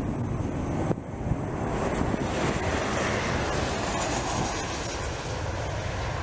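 Jet engines of a Boeing 737-800 airliner on final approach and touchdown: a steady rushing roar with a faint high whine over it, with wind buffeting the microphone. The sound changes abruptly about a second in.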